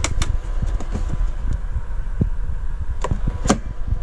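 Wooden cover board over the cooler compartment being handled: a knock just after the start and two louder knocks about three seconds in, over a steady low rumble.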